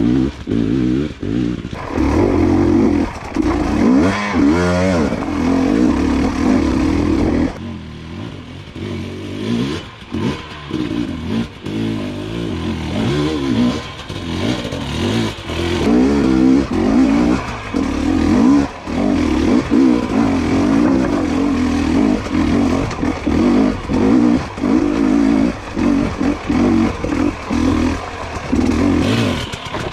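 2022 GASGAS EC250 two-stroke dirt bike engine revving in short, rapid blips and bursts while the bike crawls over rocks. It drops quieter for several seconds from about seven seconds in, then picks up again.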